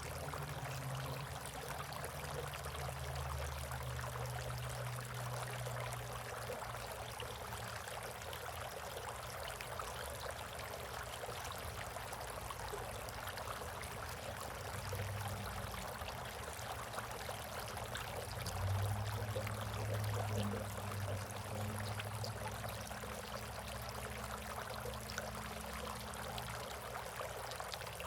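Water trickling steadily in a bird bath. A low hum comes and goes underneath and is loudest about 19 seconds in.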